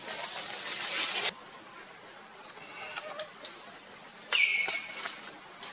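Steady high-pitched drone of insects, crickets or cicadas. A hiss cuts off suddenly about a second in, and a short squeal that falls in pitch and then holds sounds about four seconds in.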